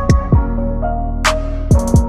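Background hip hop music with a deep sliding 808 bass drum, sharp hi-hats and claps, and held synth notes.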